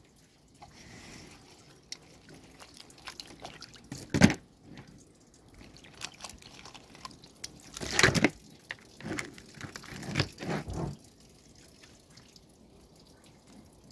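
Water dripping and splashing at irregular intervals as rinsed, split lobsters drain, with a few louder splashes, the loudest about eight seconds in.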